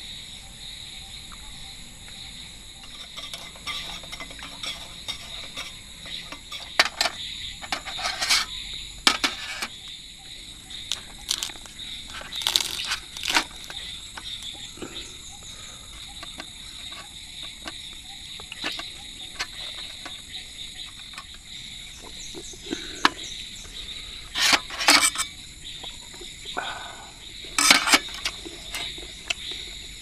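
Steady high-pitched chirring of insects, with scattered sharp clinks and scrapes of a metal spork against small metal camp bowls, in two clusters.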